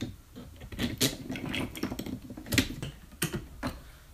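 Small plastic and metal parts of a 3D printer's extruder assembly clicking and knocking as they are handled and fitted back together, in irregular taps with a few sharper knocks about a second in and a little past halfway.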